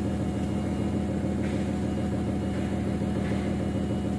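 Excavator's diesel engine idling steadily with a low, even hum.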